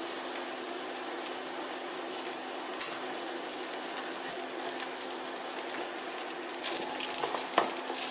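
Sliced garlic sizzling steadily in olive oil in a frying pan, under a steady low hum. A few light taps and clicks, one about three seconds in and a couple near the end as a spatula stirs the pan.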